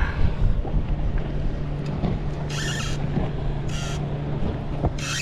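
Wind buffeting the microphone over the low, steady hum of a boat's motor, with three short hissing bursts about a second apart in the second half.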